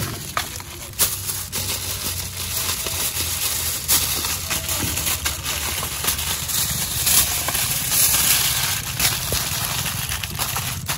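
Aluminium foil crinkling and crackling as it is wrapped tightly around a quail in layers.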